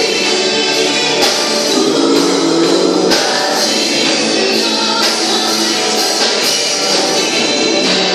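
Christian worship song playing: a band with a regular beat and long held notes, with some singing.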